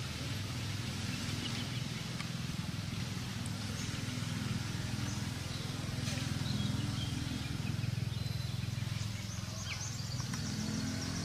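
Outdoor ambience: a steady low hum under an even hiss, with a few faint high bird chirps, most of them near the end.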